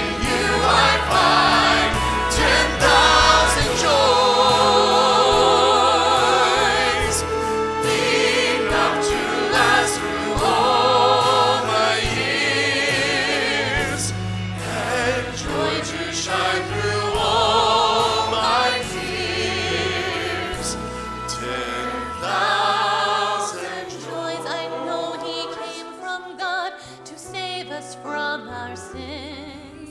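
Choir singing with vibrato over instrumental accompaniment, getting quieter near the end.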